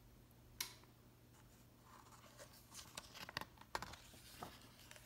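A picture-book page being turned by hand: faint paper rustling with a few light clicks, after a single soft tap about half a second in.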